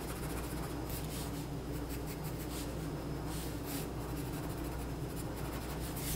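Pencil drawing on paper: a run of short, irregular strokes of graphite scratching across the sheet, over a steady low hum.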